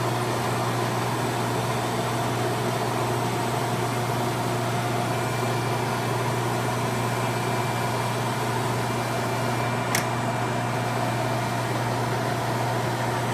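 Landis LCHH plain cylindrical grinder running under power, its wheel spindle and hydraulic pump giving a steady hum with a few fainter higher tones over it. A single sharp click about ten seconds in.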